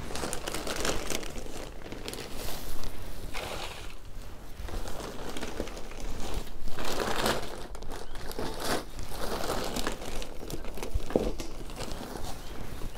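Plastic bag of potting soil crinkling and rustling unevenly as soil is scooped out of it by hand and dropped into a plastic cell seed tray.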